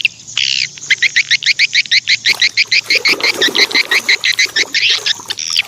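A fast, regular series of short chirping animal calls, about eight a second, of the kind frogs or insects make.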